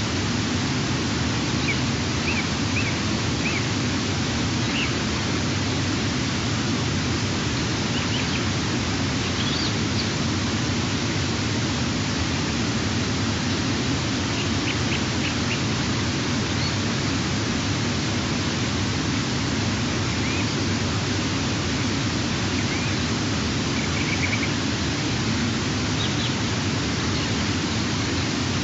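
Steady, even hiss of outdoor background noise, with faint, short high bird calls breaking through every few seconds.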